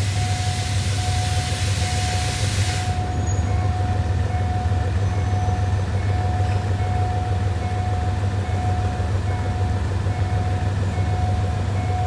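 GE diesel-electric locomotive 4018 drawing in slowly and slowing towards a stop, its engine a steady low drone. A steady high warning tone from the level crossing sounds over it, with a hiss in the first three seconds.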